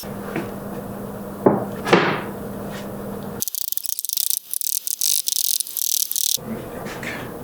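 Two sharp knocks over a steady low hum, then about three seconds of rapid, high-pitched chirring like crickets that starts and stops abruptly.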